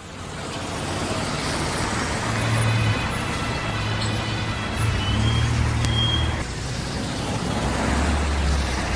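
Road traffic noise: a steady rush of passing cars and trucks on a multi-lane highway, fading in at the start.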